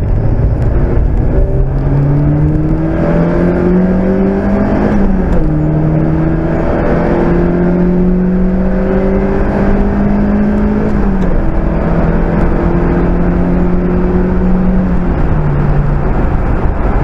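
Mazda MX-5's 1.8 VVT four-cylinder engine accelerating under load through the gears, with road and wind noise. The engine note climbs steadily, then drops at an upshift about five seconds in, again near eleven seconds and again near fifteen seconds, climbing again after each.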